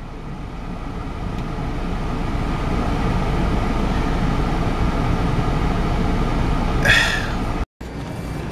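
Steady low rumble and hiss of road and engine noise inside a car's cabin, growing louder over the first few seconds. A short breathy sound comes shortly before the sound cuts out for a moment.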